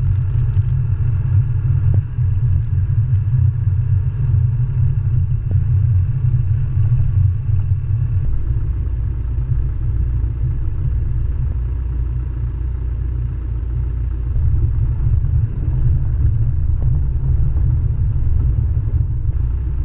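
Car driving along a gravel road: a loud, steady low rumble of tyre and road noise.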